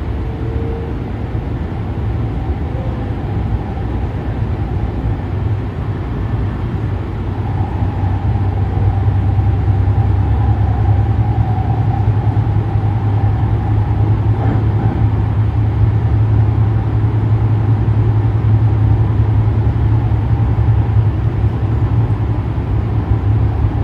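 Metro Gold Line light rail train running, heard from inside the passenger car: a steady low rumble of wheels and running gear that grows louder about eight seconds in, with a faint whine above it for several seconds in the middle.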